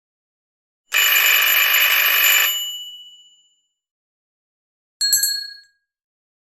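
Doorbell ringing rapidly, a continuous metallic ring for about a second and a half that then fades away; a few seconds later a brief second ring.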